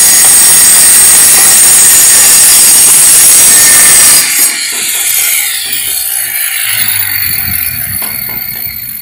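Power saw cutting tile for the baseboard: a very loud, high-pitched grinding whine that drops off about four seconds in, then carries on more quietly and fades.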